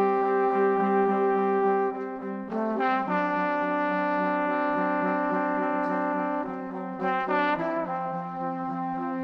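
Background music: slow, held brass chords that change twice, about three seconds in and near the end.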